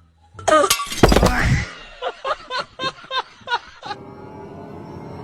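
A loud thump about a second in, then a run of about seven short, evenly spaced laughs, and a steady music drone starting near the end.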